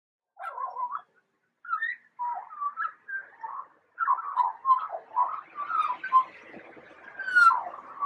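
Eurasian magpie calling in a string of short, bending, whistle-like notes around one pitch. A brief pause comes about a second in, then a denser run from about four seconds in.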